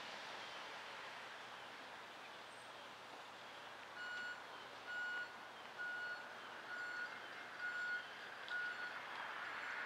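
An electronic warning beeper sounding even, high-pitched beeps about once a second, starting about four seconds in, over a faint steady hiss.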